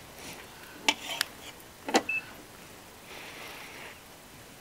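Gas pump nozzle handled at a fuel pump and put into a motorcycle's filler: a few sharp clicks and knocks, the loudest about two seconds in, with a short high beep just after it, then a soft hiss.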